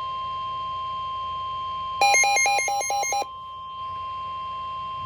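NOAA Weather Radio broadcast audio: a steady electronic tone, broken about two seconds in by a loud burst of rapidly alternating electronic beeps lasting just over a second. These are the alert tones that open a severe thunderstorm warning.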